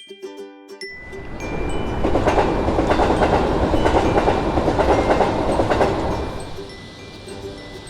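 A train passing a level crossing: the rumble and clatter of the wheels swell over a couple of seconds, stay loud for about four seconds, then fade. The crossing's warning bell rings briefly at the start and comes back faintly near the end.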